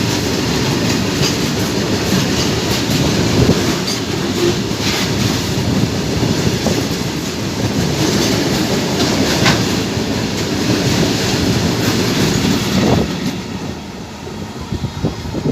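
Train cars passing at speed: steady rumbling with the clickety-clack of wheels over rail joints. The sound dies away about thirteen seconds in.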